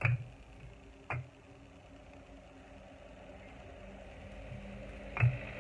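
Red clay bricks knocking against each other as they are picked up and stacked: a sharp clack at the start, another about a second in, and the loudest near the end. A steady low hum, like a motor running, slowly grows louder underneath.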